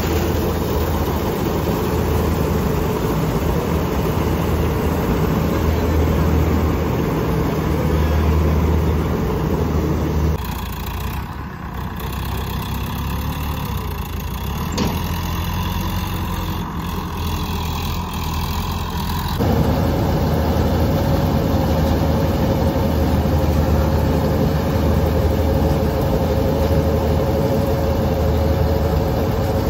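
Combine harvester running steadily as it cuts rice paddy, with a deep engine hum under the rattle of the machinery. The sound drops to a quieter, more distant engine hum for several seconds in the middle, then the combine comes back up loud and steady.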